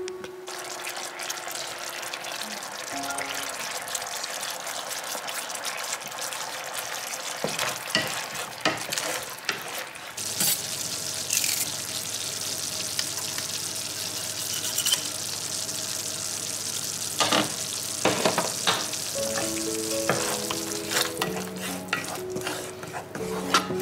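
Tomato sauce sizzling and bubbling in a frying pan as it is stirred with a wooden spoon, with scrapes and taps of the spoon against the pan. Background music comes in near the end.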